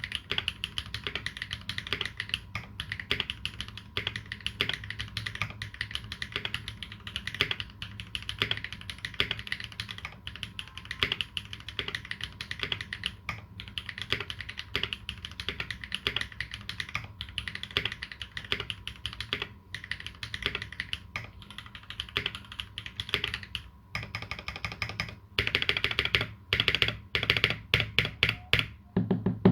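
Typing on a custom mechanical keyboard with lubed Holy Panda tactile switches and GMK keycaps: a steady stream of keystrokes. Near the end the strokes come louder in quick clustered runs, then stop suddenly.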